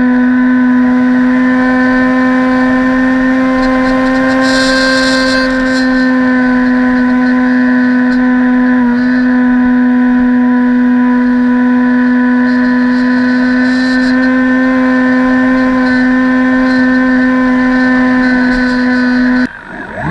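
Electric motor and propeller of an RC model aircraft running at a steady throttle, a loud, even whine with one constant pitch, heard through the action camera mounted on the model. It cuts off near the end.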